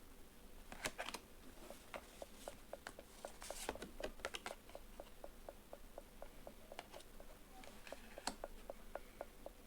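Faint, regular ticking or knocking, about three ticks a second, which the uploader cannot account for. A few louder clicks and rustles of tarot cards being handled fall among the ticks, near the start, in the middle and near the end.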